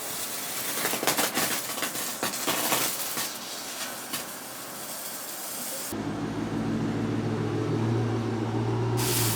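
Small handheld firework burning with a steady hiss and scattered crackles. About six seconds in the sound cuts abruptly to a steady low hum.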